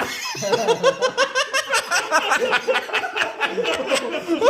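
A group of people laughing together, several voices overlapping in quick repeated bursts of laughter.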